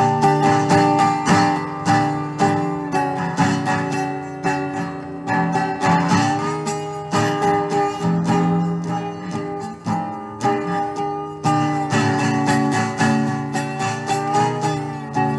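Wooden-bodied resonator guitar played slide-style with a metal slide, strummed and picked in quick repeated strokes. Sustained chords ring under the strums, with notes gliding in pitch near the end.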